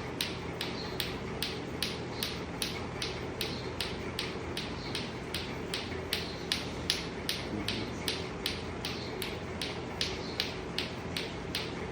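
Clacker toy ('tuc tuc'), two hard balls on a string knocking together in a steady rhythm of about three clacks a second as they swing in a V.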